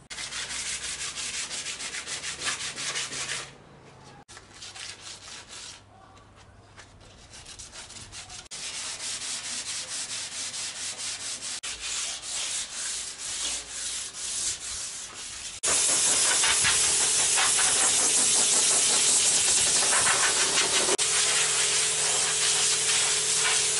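Hand sanding of a painted metal car body panel with a sanding sponge, in quick back-and-forth strokes, roughing up the old paint and taking off surface rust. The sanding eases off for a few seconds near the middle and is much louder and steadier over the last third.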